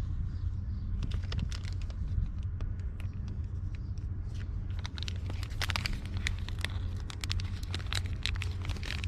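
Small scrapes and clicks of hands handling the battery cable terminals while greasing them, coming thicker in the second half, over a steady low rumble.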